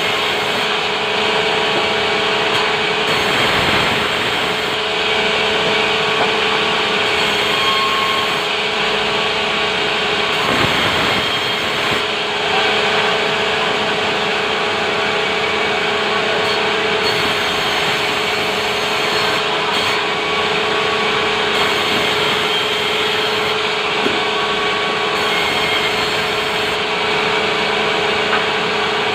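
Sawmill saw running steadily, a constant machine hum under a dense cutting noise with no breaks.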